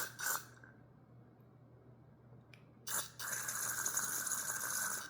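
Aerosol carburetor cleaner sprayed through a thin straw into a carburetor passage. It hisses once briefly at the start, then a longer steady spray runs from about three seconds in until just before the end. The passage is badly clogged, so the spray is not coming through.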